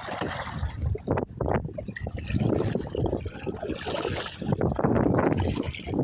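Water splashing and sloshing around a kayak in choppy waves, in irregular surges.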